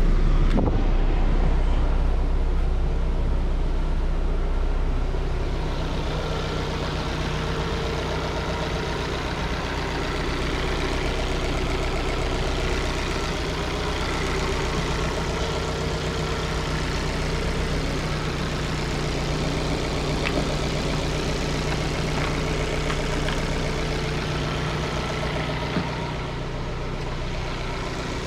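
Fiat 500 engine idling steadily during bleeding of the cooling system after a thermostat replacement. It is a little louder at first and settles to an even idle over the first several seconds.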